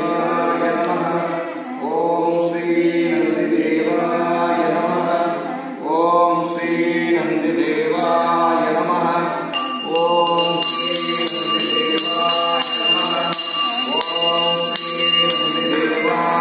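Devotional Sanskrit-style mantra chanting by voices, sung in rising and falling phrases. From about ten seconds in, a bell rings rapidly over the chant for about five seconds.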